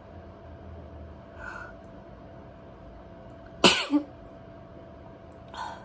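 A single sudden, loud sneeze a little past halfway, brought on by tickling inside the nose with a cotton bud. Fainter short breaths come about one and a half seconds in and again just before the end.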